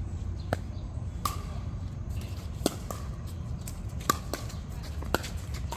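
Ball being hit back and forth in a racket-sport rally: about seven sharp pops at uneven intervals, some with a short ringing tone, over a steady low rumble.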